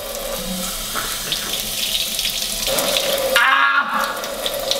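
Kitchen faucet running a steady stream of water into a stainless steel sink, with a man's mouth under the stream to rinse it out. About three and a half seconds in, there is a brief vocal sound from him.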